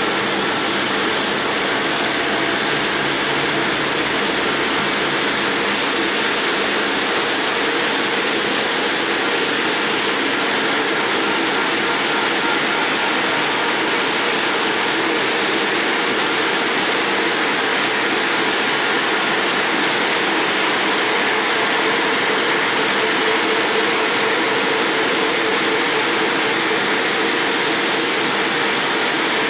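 Multi-blade granite block cutter running steadily as its large water-cooled circular saw cuts down through a granite block. The sound is an even, unchanging hiss of blade, stone and spray water, with a faint hum.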